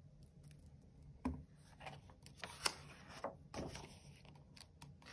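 Picture book being opened and its pages turned: faint paper rustles and a few short swishes and light taps against the table.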